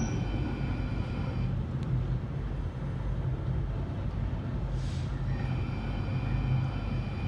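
London Underground 1995 Stock train running, heard from inside the carriage: a steady low rumble of wheels on track with a high electric whine. The whine fades out after about a second and a half and returns about five seconds in, with a short hiss at that point.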